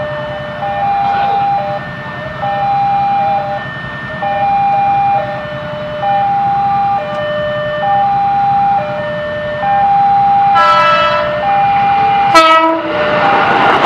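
Railway level-crossing warning alarm sounding a two-tone ding-dong, a higher tone of about a second then a lower one, repeating steadily. An approaching train sounds its horn twice, about ten and twelve seconds in, the second blast short, and the noise of the train rises just at the end.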